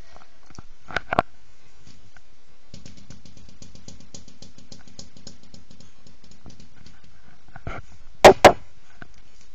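A cat playing on a hard floor. There are two light taps, then a quick run of light ticks at about eight a second for several seconds, and two loud thumps close together near the end.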